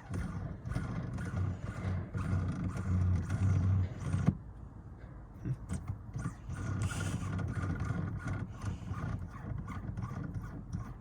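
Rubbing, scraping and light clicks of a threaded shift knob being turned by hand onto a car's gear shifter, with close handling noise.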